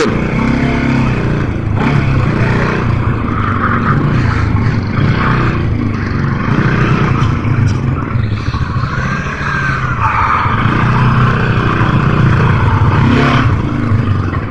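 Motorcycle engine running at low speed, its pitch rising and falling again and again with the throttle, heard from the rider's helmet camera.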